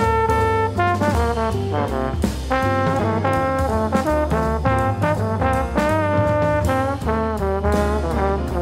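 Jazz music: a brass-toned lead line of quick, changing notes over a low bass line, with no sung words.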